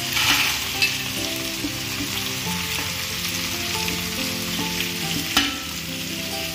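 Tomatoes, onion and dried red chillies sizzling in oil in a pan while roasted peanuts are poured in and stirred with a wooden spatula. A few sharp clicks against the metal, the loudest a knock about five seconds in.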